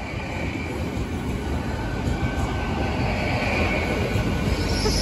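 Train passing over a level crossing: a steady rail rumble that grows louder, with a faint thin squeal from the wheels. A high hiss comes in near the end.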